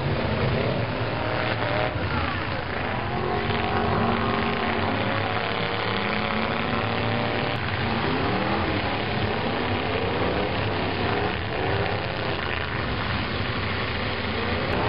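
Engines of several old pickup trucks running and revving hard together in a demolition derby, their pitches rising and falling as the drivers gun them to push and ram one another.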